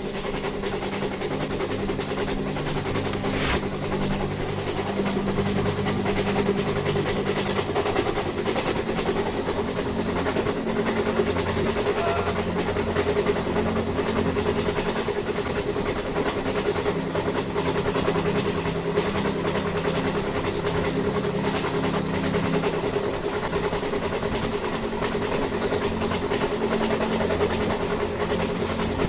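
Train running: a steady engine drone with rail and wheel noise and a constant hum, unchanging throughout.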